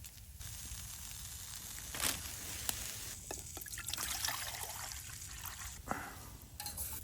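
Water pouring and trickling into a pot, with a few sharp clinks, stopping suddenly near the end.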